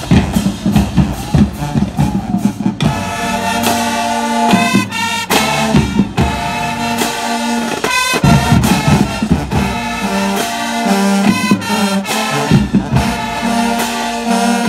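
High school marching band playing: the drums beat a steady cadence, then about three seconds in the full brass section, sousaphones, trumpets and trombones, comes in loud with held chords and short punches over the drums.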